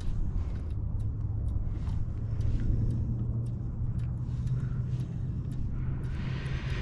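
Steady low motor hum with a few faint light clicks over it.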